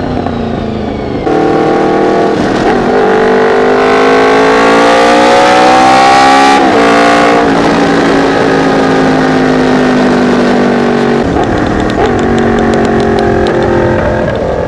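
Honda VFR750F's V4 engine with gear-driven cams, revved with the bike standing still. The revs climb steadily for several seconds, drop sharply, then ease down slowly with a couple of short blips, and the sound fades near the end.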